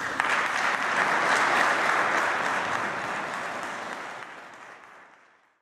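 Audience applauding, loudest in the first two seconds, then fading out to silence near the end.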